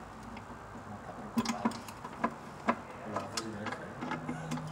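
Irregular light clicks and taps, a few sharper ones in the middle.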